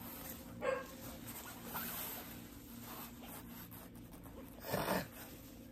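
Light handling noise: soft rustling and rubbing as a packaged item is unwrapped and unfolded, with a brief louder rustle under a second in and another near the end.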